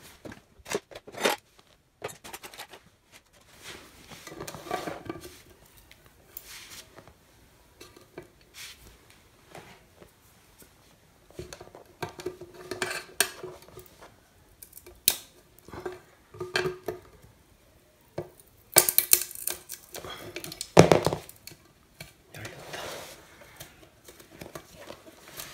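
Irregular metal clicks, clinks and scrapes of pliers gripping and twisting a seized fuse holder cap on a step-down transformer's steel case, with the loudest clatter about three-quarters of the way through. The cap will not turn because it has stuck fast with age.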